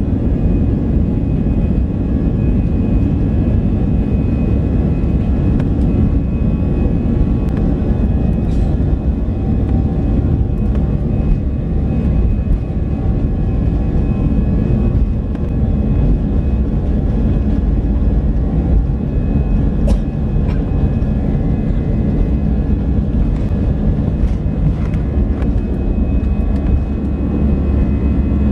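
Airbus A320-200 jet engines at high thrust during takeoff and initial climb, heard inside the cabin as a steady deep rumble with a faint whine above it. A few faint clicks come from the cabin.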